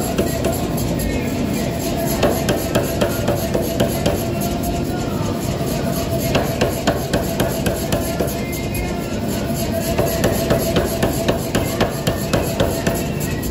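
Power hammer forging a hot pattern-welded steel billet, its ram striking in a rapid, even rhythm of about three blows a second over a steady machine hum.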